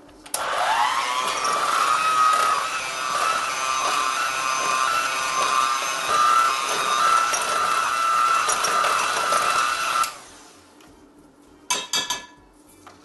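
Electric hand mixer beating dry ingredients in a glass bowl: the motor spins up with a quickly rising whine just after the start, runs steadily for about ten seconds, then stops suddenly. A few short clicks follow near the end.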